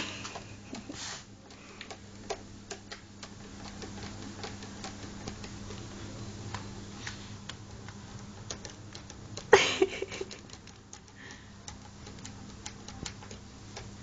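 A cat's paws tapping and scraping against mirror glass as it swats at its own reflection: irregular light taps, with a louder knock about nine and a half seconds in.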